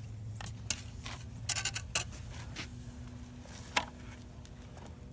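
Scattered sharp clicks and knocks from a toy backhoe's plastic parts being worked, with a quick cluster about one and a half seconds in and a single loud click near the end, over a steady low hum.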